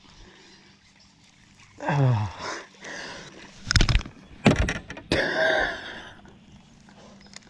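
A man's voice sliding down in pitch in a drawn-out groan, then three sharp knocks on the boat and a breathy, gasping laugh.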